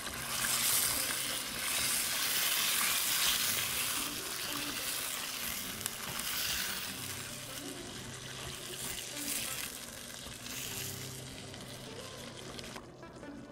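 Chicken in tomato sauce sizzling in a frying pan while a wooden spoon stirs in a creamy korma paste; the sizzle rises and falls with the stirring and dies down near the end.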